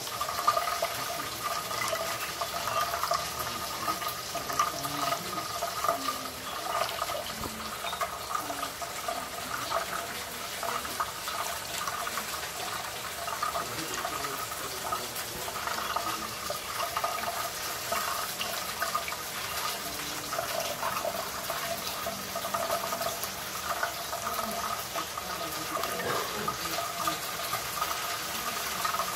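Kitchen tap running in a steady stream onto a plate, the water splashing as a budgie bathes under it.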